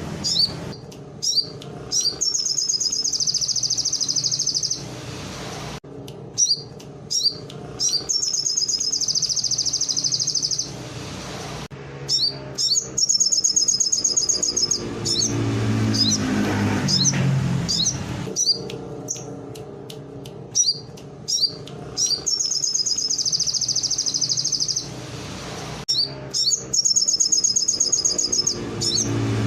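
A sogon (crimson sunbird) singing a canary-like song: a few sharp chirps, then a fast, high trill lasting about two seconds. The phrase repeats about every six seconds, five times over, under a low hum.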